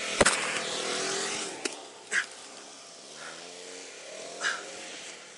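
Side-by-side UTV engines revving and fading away as the machines flee, the pitch rising and falling with the throttle. A sharp knock comes about a quarter second in, and a few short rushes of noise follow.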